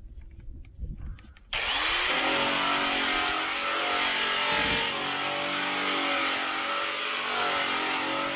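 Angle grinder switched on about a second and a half in, spinning up with a rising whine, then running steadily as it grinds old paint and Bondo off the steel quarter panel on a worn disc.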